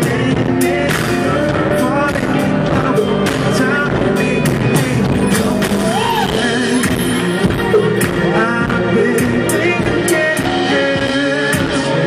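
Live band performing an R&B song: a male lead vocalist singing over drums, keyboards and horn, with regular drum hits.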